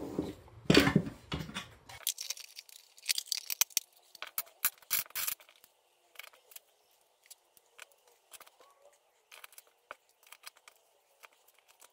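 Dice and small game pieces clicking and clattering as they are dropped and set into a 3D-printed marble-effect PLA organizer tray, with cardboard tiles knocking against the plastic. Irregular clicks, quick and many at first, then sparser and fainter through the second half.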